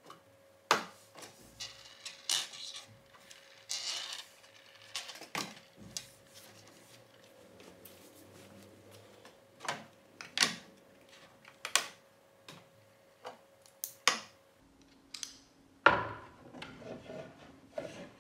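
Clicks, clacks and knocks of 3D-printed plastic housing parts, screws and tools being handled and set down on a wooden workbench, about a dozen separate strokes. A faint steady hum sits underneath and shifts to a lower pitch near the end.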